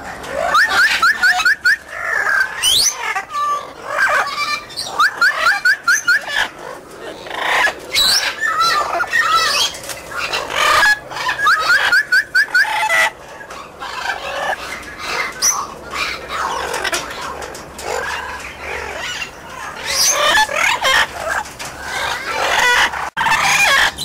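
Amazon parrots calling and chattering, with several quick runs of rapidly repeated clucking notes among other squawks and calls.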